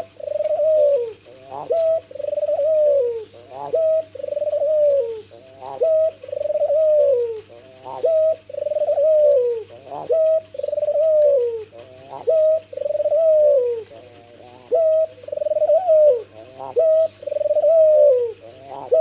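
Albino Barbary dove (puter) cooing over and over, a long coo that falls at its end alternating with short sharp notes, about one phrase every two seconds.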